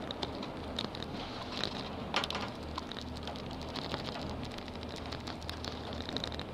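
Ride noise inside a Poma detachable 8-seat gondola cabin moving along the cable: a steady low hum under light, irregular ticking and clicks, with a sharper click about two seconds in.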